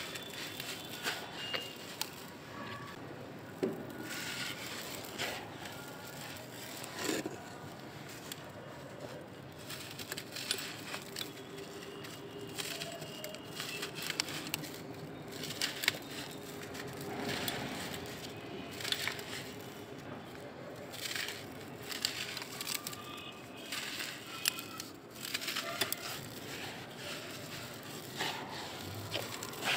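Hands crushing and crumbling blocks of packed dry soil, a steady run of gritty crunches and crackles as the blocks break apart and the loose grains pour and rub between the fingers.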